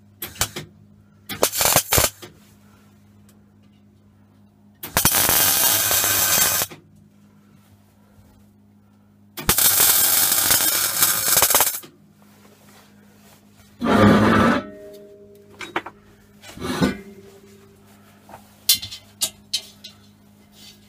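MIG welder arc crackling as a steel snout is welded onto a gas-bottle body: a few short tack bursts, then two longer welds of about two seconds each. A steady low hum runs under it, with a couple of knocks and clicks near the end.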